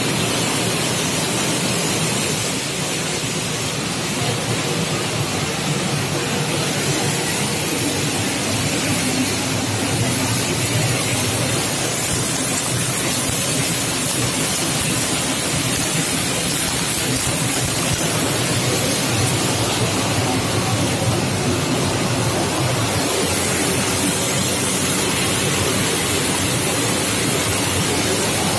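Angelon double-belt plastic colour sorter and the surrounding recycling machinery running: a loud, steady, even noise with a faint hum underneath.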